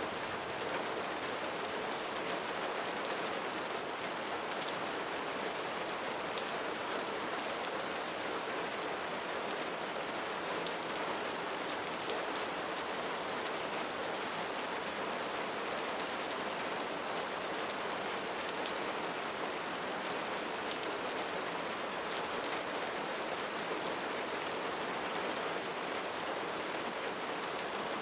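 Steady rain falling on leaves, an even wash of water noise with many small drop hits scattered through it.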